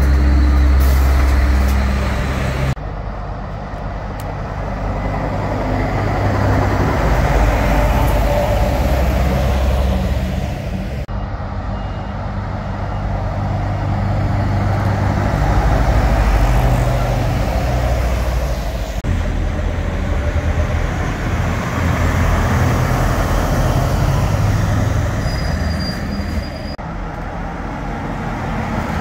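Diesel engines of heavy tractor-trailer trucks running as the trucks drive toward and past, a deep steady rumble. The sound changes abruptly about every eight seconds.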